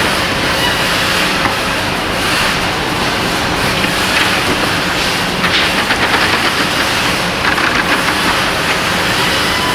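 Steady mechanical noise with a hiss and a faint hum, with two brief rattling surges, one about halfway through and one a couple of seconds later.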